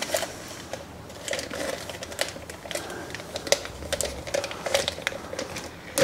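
Irregular small clicks and plastic-bag crinkling as a stainless steel jug of plastic electrical connectors in a creamy bleach mixture is tipped into a zip-lock bag.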